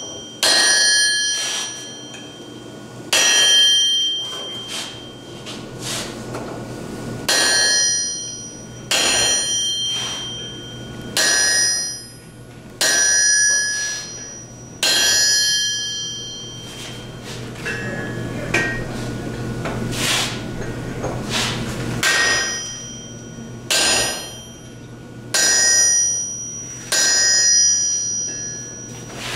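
Hammer and sledgehammer blows driving a flat-bottom punch into red-hot steel on an anvil to punch a hole, about fourteen strikes roughly every one and a half to two seconds. Most blows ring with a clear metallic tone that dies away.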